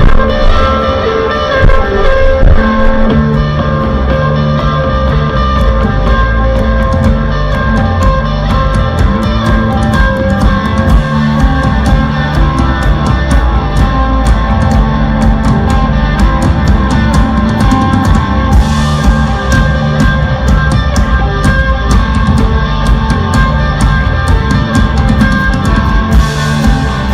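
Live rock band playing loudly: sustained electric guitar over drum kit, with cymbal crashes twice in the second half.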